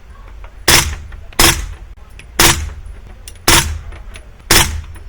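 PSA AKV 9mm AK-pattern firearm fired in slow semi-automatic: five shots, the first two close together, then about one a second, each followed by a short echo.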